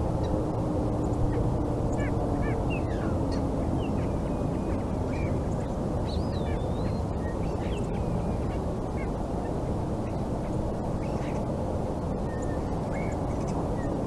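Outdoor ambience in a lull of a warning-siren test: a steady low background rumble with birds calling and chirping throughout. The last of a distant siren tone dies away in the first second or two.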